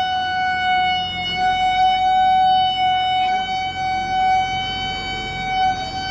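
Playground merry-go-round squealing steadily as it spins, one high, unbroken note that wavers slightly in pitch.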